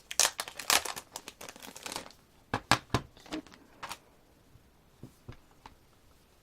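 CD album packaging being handled: crinkling and rustling for about two seconds, then a handful of sharp clicks and taps.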